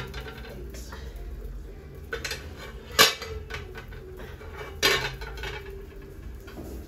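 An aluminium cooking pot and its lid clanking against a metal spoon: a few light clinks, then two sharp clangs about three and five seconds in, the second ringing briefly.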